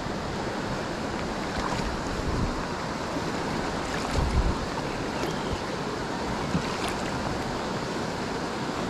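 Steady rush of a fast-flowing, flooded river, with a brief low rumble of wind on the microphone about four seconds in.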